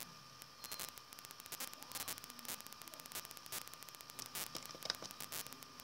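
Irregular quick clicks, several a second, over a steady hiss with a faint high-pitched hum, typical of working at a computer.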